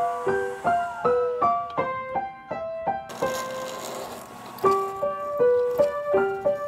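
Background piano music: a light melody of single struck notes, several a second, thinning out briefly in the middle.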